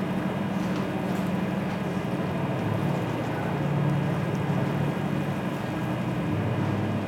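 Passenger ferry's engine droning low and steady under a constant rushing noise; the drone shifts lower in pitch about three seconds in.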